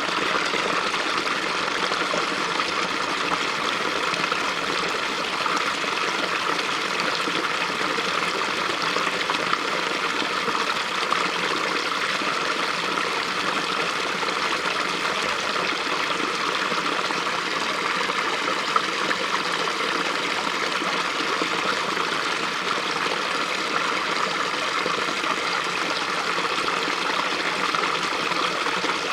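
Small fast-flowing stream running over rocks, a steady rushing and gurgling of water.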